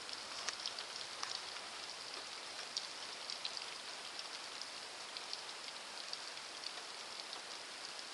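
Steady rain falling on a wet street: an even hiss with many small drop ticks scattered through it.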